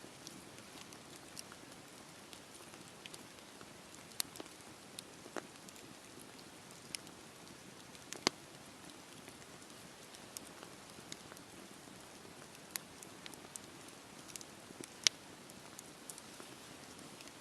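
Campfire burning: a steady low hiss with irregular sharp crackles and pops from the burning wood, two louder pops at about 8 and 15 seconds in.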